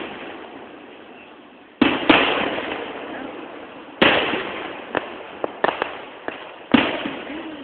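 Aerial fireworks shells bursting: loud booms about two, four and almost seven seconds in, each trailing off in a long echo. A handful of smaller sharp cracks come between five and six and a half seconds.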